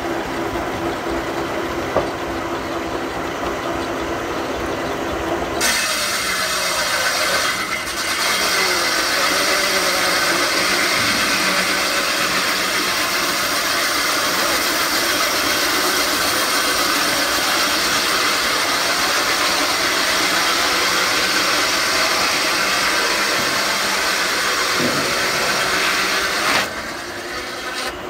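Steam-driven sawmill machinery running with a steady hum. About six seconds in, a loud hissing, rushing noise starts; it lasts about twenty seconds and then drops away.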